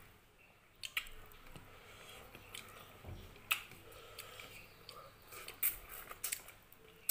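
Close-up eating sounds: soft chewing and mouth noises with a handful of short sharp clicks and smacks as a piece of food is pulled apart by hand and eaten.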